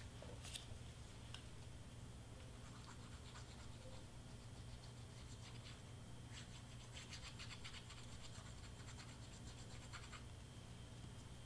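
Faint, scattered scratching and rubbing of fingers pressing glued cardstock pieces flat, busiest past the middle, over a steady low hum.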